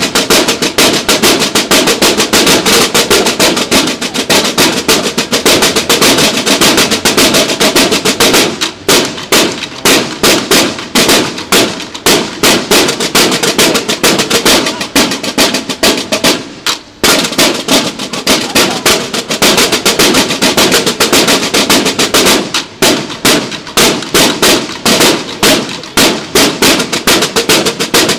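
Drum line of snare drums played together in a fast, steady, driving pattern, with a short break about seventeen seconds in.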